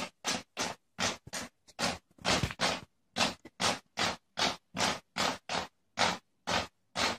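Repeated scratching or scraping strokes in an even rhythm, about three a second, that cut off suddenly at the end.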